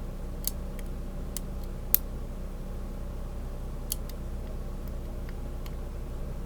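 Small, sharp metallic clicks and ticks from a lock pick and tension wrench working the pins inside the keyway of a Kryptonite disc padlock. They come irregularly, about eight in all, with the sharpest click about two seconds in, over a steady low hum.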